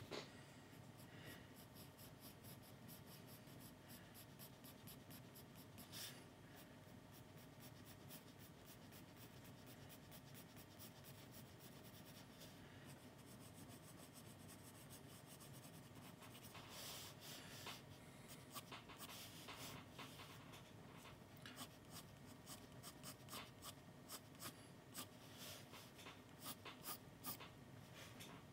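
Pencil scratching on sketchbook paper, quiet, in short strokes, which become quick, rapid hatching strokes in the last third.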